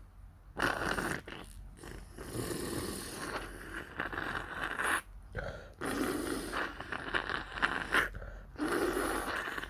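A person sniffling and snorting through a runny, irritated nose, in several drawn-out noisy bursts.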